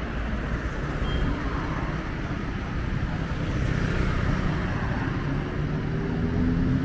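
Busy road traffic: motor vehicle engines and tyres passing, with one engine rising in pitch as it accelerates near the end.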